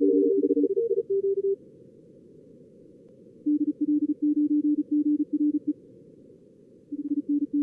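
Simulated high-speed Morse code (CW) from a contest logger's two-radio practice mode: two streams of beeps at different pitches overlap for the first second and a half, then, after a stretch of hiss only, one lower-pitched keyed string follows, and a new one starts near the end. Under it all runs a steady band of simulated receiver noise.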